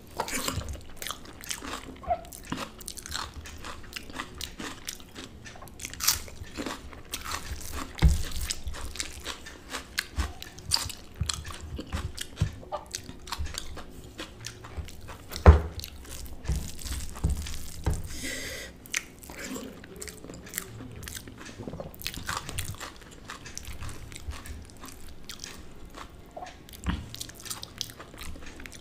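Close-miked eating by hand: chewing and biting mouth sounds with many small irregular clicks, and fingers squishing and mixing soft rice on a paper plate. A sharp louder hit comes about halfway through.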